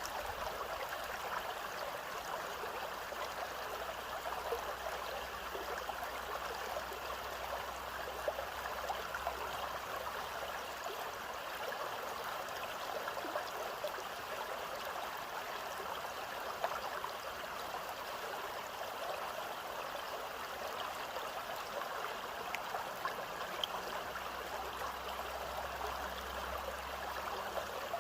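Water flowing and trickling, recorded close up: a steady, even splashing and babbling with small droplet ticks through it.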